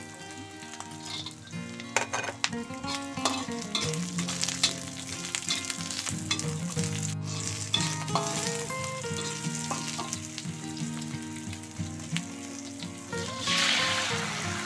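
Shallots, garlic and ginger sizzling in hot oil in a wok while a metal spatula scrapes and stirs them, with repeated clicks of the spatula against the pan. About a second before the end the sizzle surges into a louder hiss as soy sauce goes into the hot wok.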